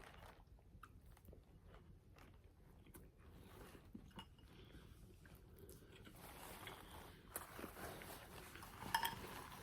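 Faint sounds of a person chewing a bite of honey butter cornbread, with scattered soft mouth clicks.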